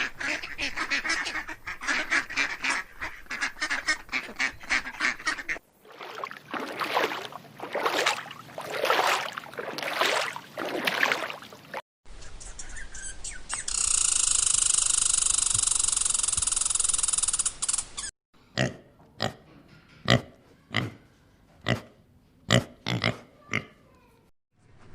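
Farm waterfowl honking and quacking, in several separate cuts: quick runs of calls at first, a long held call a little past the middle, then short single calls evenly spaced near the end.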